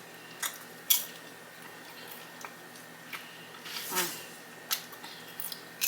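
Close-miked eating sounds: a person chewing a mouthful of food, with scattered soft wet clicks and smacks. There is a short hum about four seconds in.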